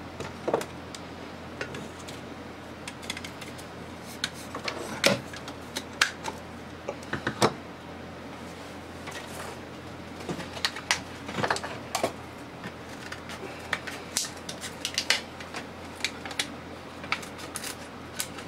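Irregular clicks, taps and knocks of plastic and metal flood-lamp parts being handled, twisted and set down on a wooden desk, with a few sharper knocks between about five and seven and a half seconds in.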